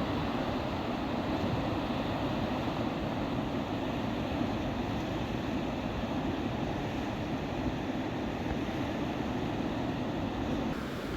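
River rapids rushing steadily, a continuous wash of water noise that dips slightly near the end.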